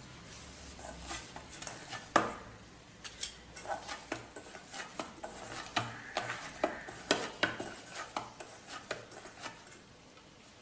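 A hand kneads and presses a ball of bread vada dough in a stainless steel bowl, with irregular taps and knocks against the steel. The loudest knock comes about two seconds in.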